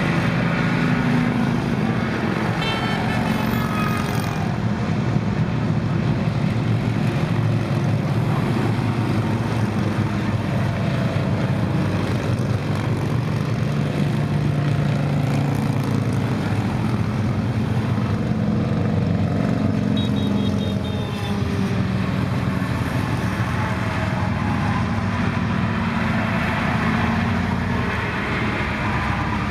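Interstate traffic: a steady stream of motorcycles and some cars passing on the highway, engines running and tyres humming, with engine notes sliding in pitch as they go by.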